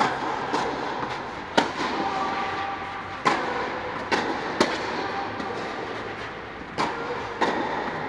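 Tennis balls struck by rackets during a rally on a clay court, a sharp hit every second or so, each echoing in a large indoor hall.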